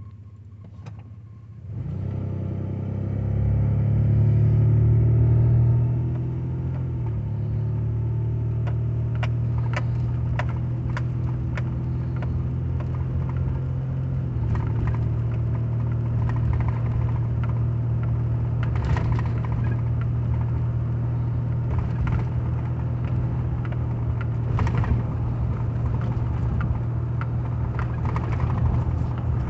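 1995 Toyota T100 pickup, heard from inside the cab, pulling away from a stop in Drive. The engine's pitch rises and falls back as the automatic transmission upshifts, about six seconds in and again around fourteen seconds. It then runs steadily at cruising speed, with a few sharp ticks along the way.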